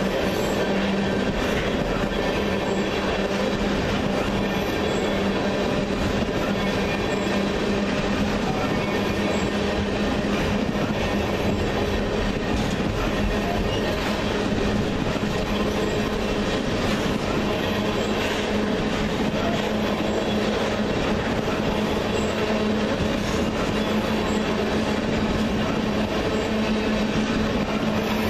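Freight train of crude-oil tank cars rolling past close by: steel wheels on the rails making a steady rumble with a steady droning tone, unchanging throughout.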